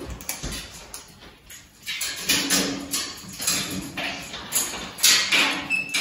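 A parrot making a series of short, raspy vocal sounds, one about every half second to second, the loudest about five seconds in.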